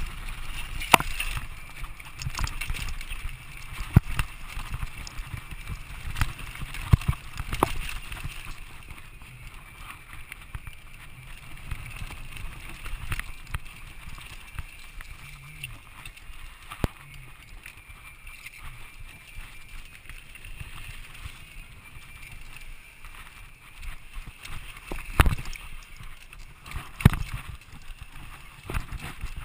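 Mountain bike ridden fast down a dirt singletrack: a steady rumble of wind on the camera microphone and tyres on dirt, with sharp rattles and knocks from the bike over bumps, thickest in the first eight seconds and again near the end.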